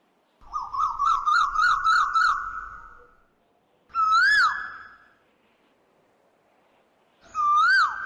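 Clear whistled calls over near silence: a warbling trill of about seven quick wavers, then two single notes that rise and fall, several seconds apart.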